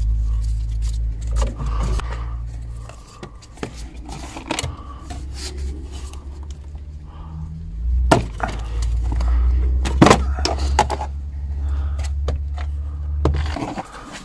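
Plastic air-intake ducting and trim being pulled off and handled: a run of clicks, knocks and scrapes, with a few sharp knocks a little past the middle. A steady low rumble runs underneath, dropping out for a couple of seconds after the start and stopping just before the end.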